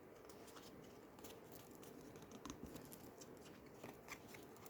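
Faint, scattered small clicks and rustles of oracle cards being handled and turned over, against quiet room tone.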